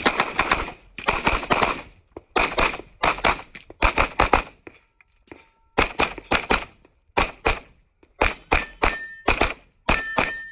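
Rapid pistol fire from an Open-division competition race gun, with shots in quick strings of two to several and short pauses of under a second between strings.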